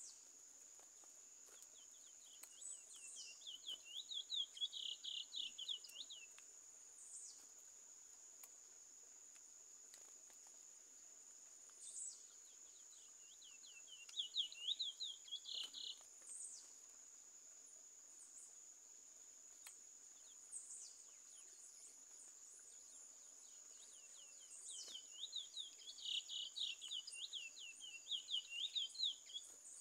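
Curió (chestnut-bellied seed finch) singing in three bouts of rapid, quickly repeated notes: a few seconds in, in the middle, and near the end. A steady high-pitched insect drone runs underneath.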